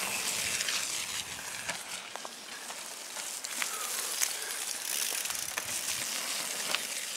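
Mountain bikes passing close on a muddy trail strewn with dead leaves: tyres rolling over the leaves and mud make a steady rough hiss, with scattered sharp clicks.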